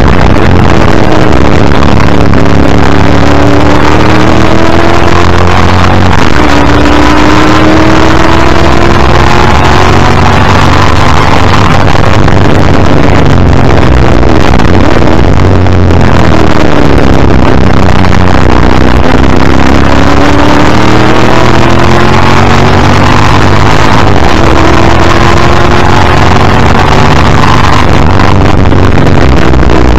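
1984 XD Group C Ford Falcon's V8 racing under hard throttle, heard from its front bumper: the engine pitch climbs in four long pulls through the gears, over loud wind and road noise.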